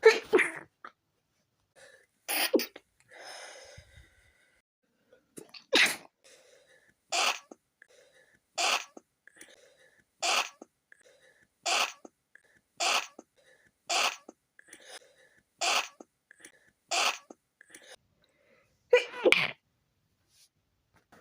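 A person's stifled sneezes in a long fit: about a dozen short, held-in bursts, most coming about one every second and a half, with a louder one near the end.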